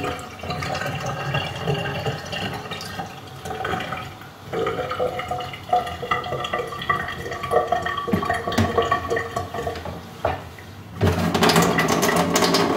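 Thin stream of reverse-osmosis water from a three-way faucet running into a glass and the steel sink, with steady pitched ringing over the splashing; it grows louder about eleven seconds in. The water is being left to run so the filter line flushes through.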